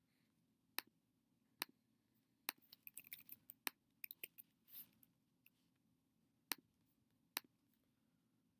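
Faint computer mouse clicks, one every second or so, with a quick run of keyboard keystrokes for about a second near the middle.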